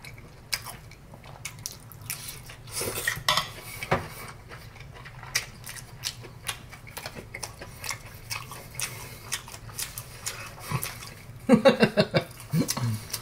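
Metal fork clinking and scraping on a ceramic dinner plate, with scattered small clicks of eating. Near the end, a short wordless vocal sound.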